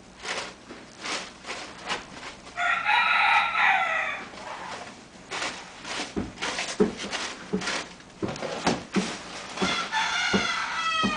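Two long, drawn-out animal calls a few seconds apart, the second one falling in pitch near the end, among short scratchy rustling and knocking sounds.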